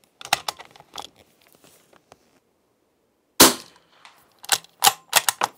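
A fully suppressed De Lisle carbine (.45 ACP, on an SMLE Mk III bolt action): metallic clicks as the bolt is worked and a round is chambered, then a single sharp, muffled shot a little past three seconds in, followed by several quick clacks as the bolt is cycled again.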